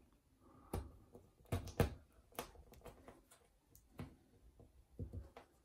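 Fingers pushing and squeezing a plastic wall plug into a drilled hole: a scattering of small sharp clicks and taps of plastic against the wall with faint rubbing between them. The plug is too tight a fit to go in.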